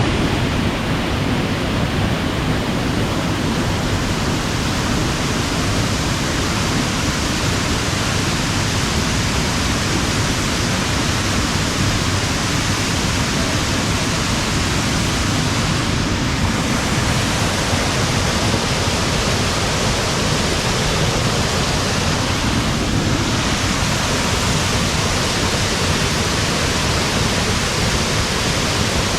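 Waterfall rushing loudly and steadily: an even wash of falling water with no breaks.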